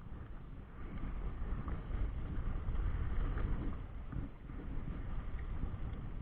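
Wind buffeting the microphone as a fluctuating low rumble, with a hiss of moving water from a choppy river beneath it.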